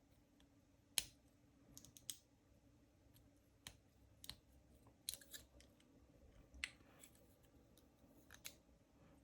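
Faint, irregular metallic clicks and ticks of a lock pick working the pins inside an Ace 50mm laminated padlock, a dozen or so small clicks scattered over several seconds.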